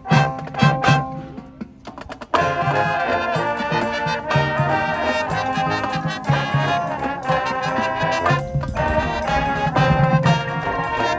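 A high school marching band's brass section playing loudly with the full ensemble. The sound fades to a brief lull, then the whole band comes back in suddenly about two seconds in and plays on.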